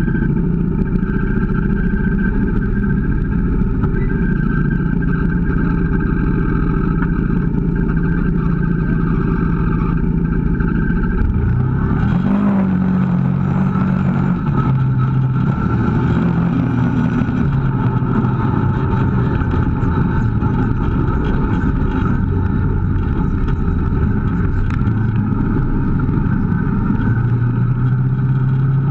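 Kawasaki KVF650 ATV's V-twin engine running steadily while riding, then revving up about twelve seconds in and rising and falling with the throttle for the rest of the time.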